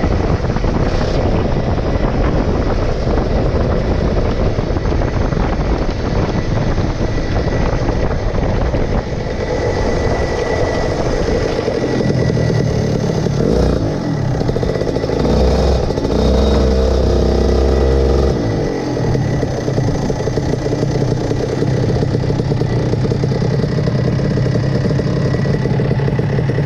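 23 hp go-kart engine running hard at first, then easing off after about nine seconds and settling into a steadier, lower running, close to idle, with a deep rumble for a couple of seconds about two-thirds of the way through.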